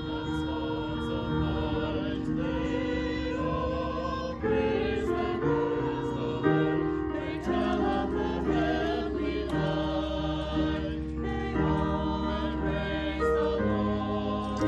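Small mixed church choir singing a sacred piece with instrumental accompaniment.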